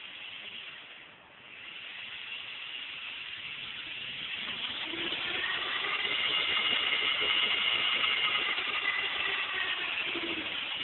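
Quadcopter's brushless motors, Emax-branded, whining as they spin up together under the flight controller's motor test. The pitch climbs from about four seconds in and eases back down near the end. Driven this way, they all spin up well.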